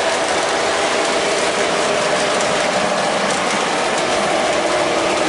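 Lionel O-gauge model train running on three-rail track: aluminum passenger cars rolling past with a steady rumble of wheels on the rails and faint clicks.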